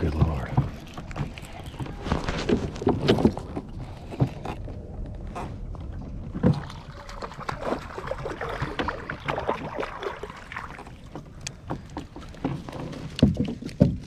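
Irregular knocks and rustling of handling in a plastic fishing kayak as a smallmouth bass is landed in a net, with the loudest knocks near the end.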